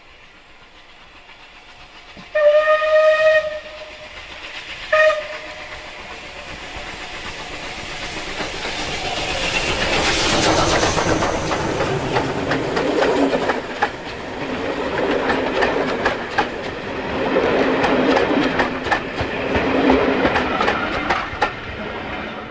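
Steam whistle of Bulleid Battle of Britain class three-cylinder Pacific No. 34072 '257 Squadron', one blast of about a second and a short toot two seconds later. The locomotive then passes close by working hard, its noise rising to a peak, and the coaches follow with their wheels clicking rhythmically over the rails.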